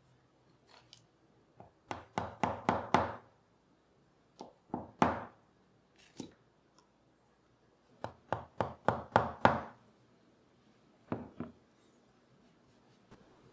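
Mallet blows on a four-prong stitching chisel, punching stitching holes through a leather strip: sharp knocks in two runs of rapid blows, several a second, with single blows between and a few more near the end.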